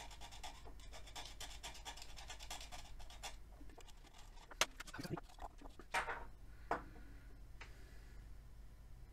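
A utility knife blade scraping rapidly at the metal end of an 18650 lithium-ion cell, roughening the terminal so solder will take. The scraping stops about three seconds in, followed by a few sharp clicks and knocks as the cell and knife are handled.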